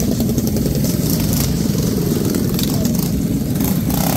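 Small minibike engines running with a steady buzz as the race bikes ride around the course, over the voices of a crowd.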